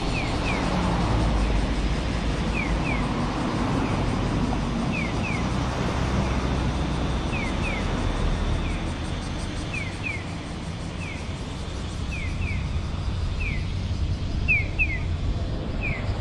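Steady low rumble of a car on the road, with short high falling chirps, mostly in pairs, repeating every second or two.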